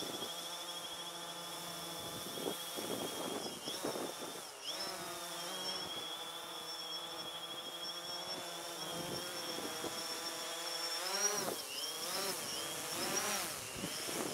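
DJI Phantom 3 Standard quadcopter flying close by, its four motors and propellers giving a steady buzzing whine. The pitch swoops up and down about four seconds in and again in the last few seconds as the drone manoeuvres.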